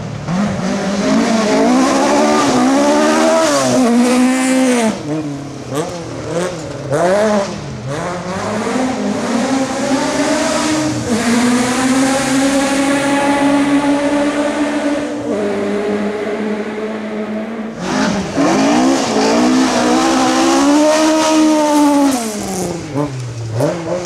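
Historic rally cars driven hard through a gravel forest stage: the engine pitch rises and falls repeatedly with gear changes and lifts off the throttle as the cars pass. A new pass begins about three-quarters of the way in.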